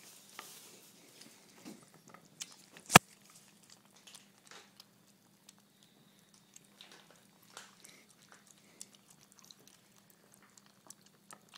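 Cats eating: soft, scattered chewing clicks, with one sharp, much louder click about three seconds in. A faint steady hum runs underneath.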